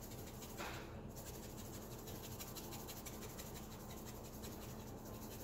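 Hand-twisted pepper mill grinding peppercorns: faint scratchy grinding, with a short louder grind about half a second in.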